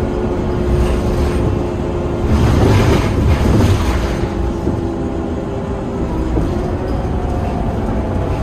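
Cabin sound of a Scania K230UB bus driving along, its diesel engine and drivetrain running with steady humming tones over road rumble. The rumble grows louder and rougher for a couple of seconds about two seconds in, and a faint tone rises near the end.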